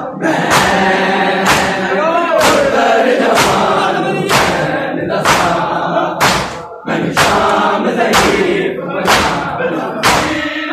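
Crowd of mourners doing matam, striking their chests with open hands in unison: a loud slap about once a second, over men chanting a noha.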